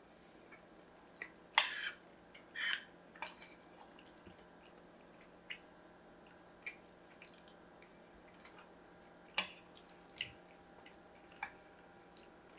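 Close-up eating sounds: scattered wet smacks and mouth clicks from chewing baked macaroni and cheese, with a metal fork scooping in a ceramic baking dish. Two sharper clicks stand out, about one and a half seconds in and about nine seconds in.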